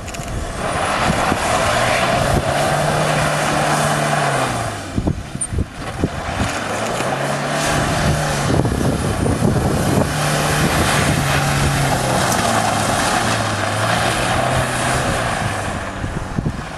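Truck engine running under way, heard inside the cab, its note rising and dropping in pitch several times as the truck drives on a sandy track. Loud road and cab noise runs under it and eases briefly a few seconds in.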